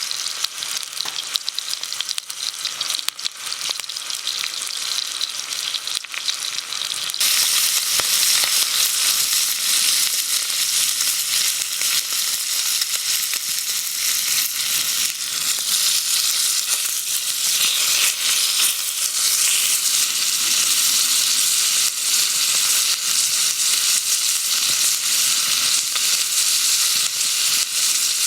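Food sizzling and crackling as it fries in a hot pan. The sizzle jumps suddenly louder about seven seconds in, then holds steady.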